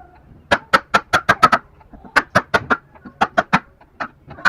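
Rapid hand-tool strikes on wood during joint cutting: quick runs of sharp knocks, several a second, in bursts broken by short pauses.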